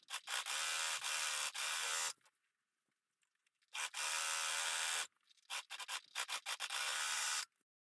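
Brother 4234D overlocker stitching a seam. It runs steadily for about two seconds, stops, runs again briefly about a second and a half later, then gives a few short stop-start bursts before a final steady run of under two seconds that cuts off near the end.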